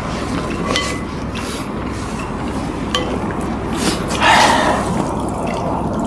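Ramen noodles being slurped quickly, with a few short clicks of utensils against the bowls and one louder slurp about four seconds in.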